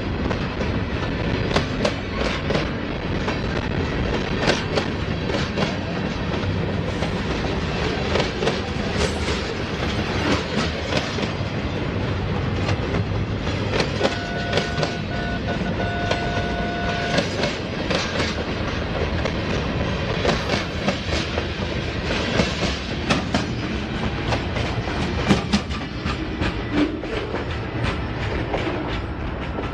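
Freight train rolling past at close range: the steel wheels of the freight cars clack over the rail joints in a steady rumble. A steady high tone sounds for about three seconds near the middle.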